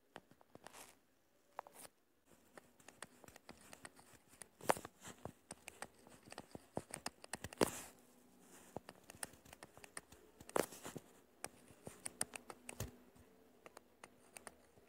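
Stylus tapping and scraping on a touchscreen while numbers are handwritten: scattered faint clicks and light scratches, with a few sharper taps.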